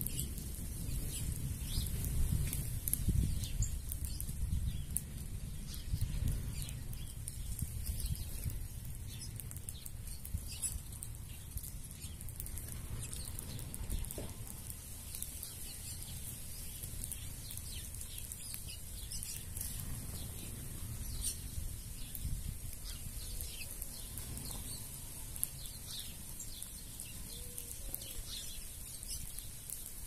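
A feeding flock of small birds, mostly red-cowled cardinals with saffron finches and ground doves, giving many short scattered chirps, with wing flutters as birds come and go. A low rumble underlies it, heaviest in the first several seconds.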